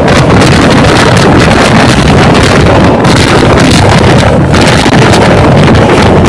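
Loud, steady wind rush buffeting the microphone over the rumble of a train running at high speed.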